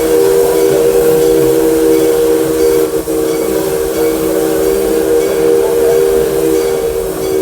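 Steam locomotive's chime whistle blowing a long, steady chord of several notes, with a short break about three seconds in, over the hiss of steam.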